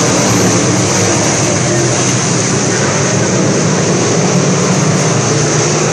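A field of southern sport modified dirt-track race cars running laps together: a loud, steady drone of many V8 race engines at speed.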